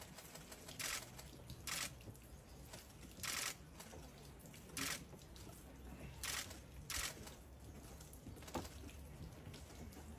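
Camera shutter clicks from visitors' cameras and phones: a short, sharp click about half a dozen times at irregular intervals, over a faint low background rumble.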